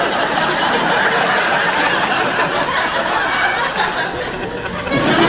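Audience laughing at a stand-up comedy joke, a steady wash of laughter that dips a little about four seconds in and swells again near the end.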